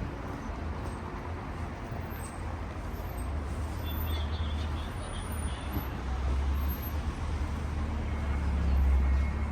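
Road traffic passing: a steady low rumble of vehicles that grows louder near the end.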